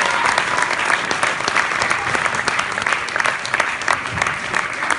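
Audience applauding: dense, steady hand clapping from many people.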